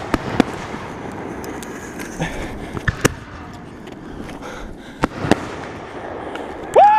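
Fireworks bursting overhead: scattered sharp bangs a second or more apart, the biggest about three seconds in and twice around five seconds, with crackling between. Near the end a loud, steady high-pitched tone sets in.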